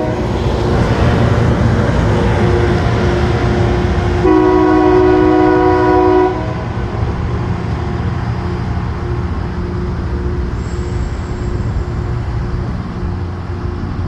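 Loram rail grinder train running with a steady low rumble. Its air horn sounds one blast of about two seconds, a few seconds in.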